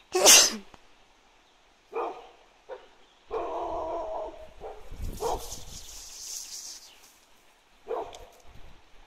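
A dog barking: short, loud barks a second or two apart, the loudest right at the start, with one longer drawn-out call about three and a half seconds in.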